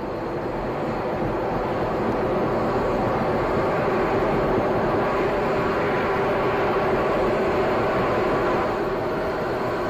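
Steady roar of an Atlas V rocket's RD-180 main engine and four solid rocket boosters in powered ascent, swelling slightly over the first couple of seconds and then holding steady.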